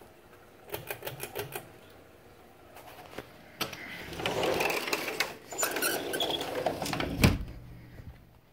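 Sliding glass door rumbling along its track, ending in a heavy thud as it shuts about seven seconds in. A run of quick clicks comes about a second in.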